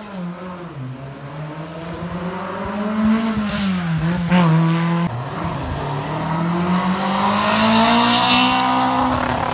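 Rally cars accelerating through a hairpin. First an Alpine A110's engine rises and falls in pitch through gear changes. After a sudden cut about five seconds in, a BMW E30 rally car's engine climbs steadily in pitch and grows louder as it pulls away.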